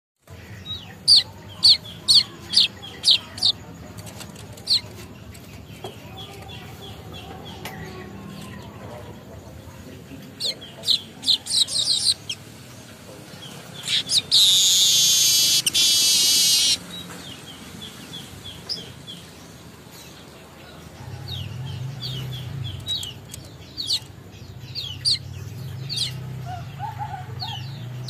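Caged manyar weaver birds chirping: quick runs of sharp, high chirps, and about halfway through a loud, wheezy, buzzing song phrase of about three seconds. A young bird is practising its song.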